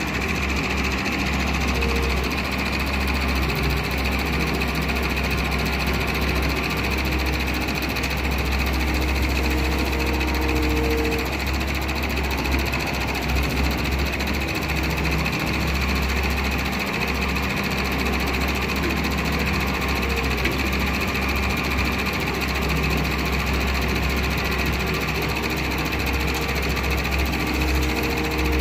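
Doosan wheeled excavator's diesel engine running steadily under load as it works its boom and bucket, with a higher whine that comes and goes.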